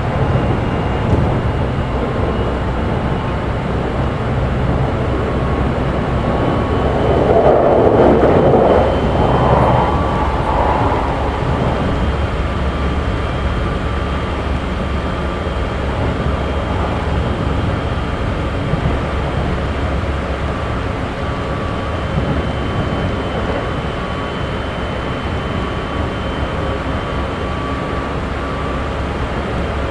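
Running sound inside a Keikyu 1500 series motor car with Mitsubishi GTO-thyristor VVVF control, under way at speed: a steady rumble of wheels on rail with a thin, steady high whine. About a quarter of the way in, a louder rumble swells for a few seconds and fades.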